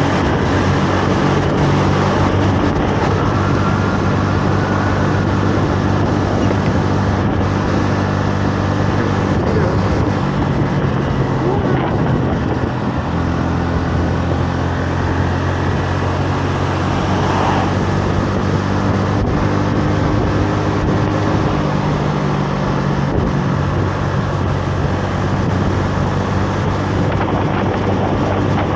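Honda Navi 110's single-cylinder four-stroke engine running at a steady cruise, its pitch shifting slightly a few times, with wind rushing over the microphone.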